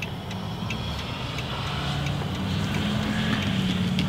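A bus engine approaching and growing steadily louder, its hum rising slightly in pitch, heard from inside a car.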